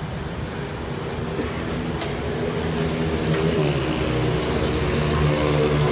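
A motor vehicle's engine running close by, getting louder, its pitch dipping briefly a little past halfway. There is one sharp click about two seconds in.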